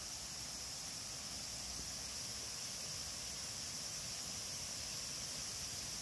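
Steady outdoor ambience in woodland: a continuous high insect drone over a low, even rushing hiss.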